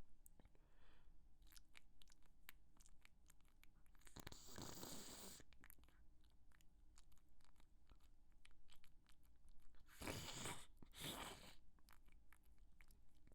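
A person breathing quietly, with one long breath about four seconds in and two shorter ones about ten and eleven seconds in, among faint clicks.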